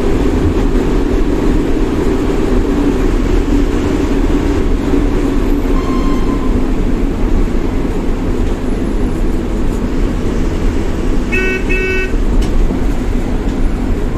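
Steady drone of a moving bus's engine and road noise, heard from inside. Two short horn toots sound close together about eleven seconds in, and a fainter horn-like tone sounds briefly near the middle.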